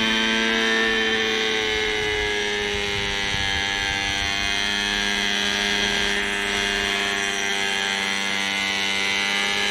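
Hirobo Shuttle RC helicopter's small glow two-stroke engine and rotor running steadily as the helicopter comes down to the ground. The pitch dips slightly in the first two seconds, then holds. The engine won't rev up cleanly: the owner puts the sluggish running down to a carburettor needle setting he can't get right, the mixture either too rich or too lean.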